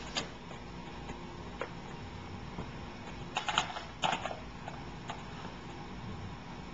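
A few light clicks over a steady hum, with two short clatters of rattling clicks about three and a half and four seconds in.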